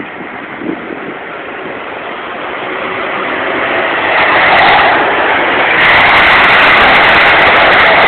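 Jet engine noise from a landing Airbus A380, its four Rolls-Royce Trent 900 turbofans: a steady rushing noise that grows louder over about five seconds, then holds loud.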